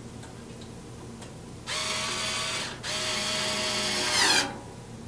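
Cordless drill-driver driving screws to fasten a band saw blade guard to its brackets, in two short runs of about one second and one and a half seconds.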